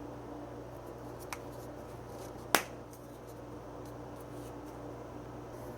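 Small kitchen handling sounds over a steady low hum: a faint tick a little over a second in, then one sharp click about two and a half seconds in.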